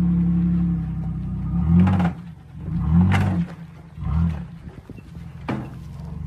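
Off-road vehicle engine running steadily, then revved in three short bursts about a second apart, with a few sharp knocks in between.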